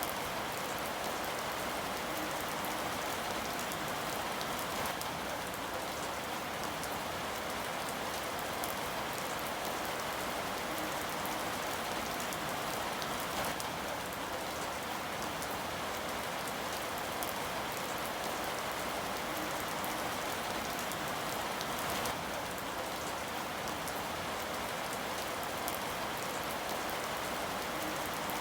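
Steady rain falling on a surface, an even hiss with individual drops ticking through it and an occasional louder drop.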